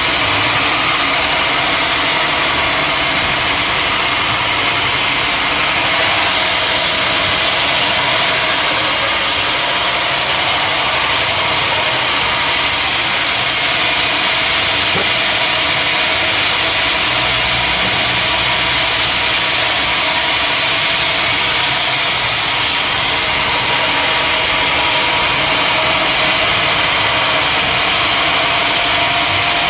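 Sawmill machinery running steadily on acacia wood: a loud, constant engine drone with a hiss over it.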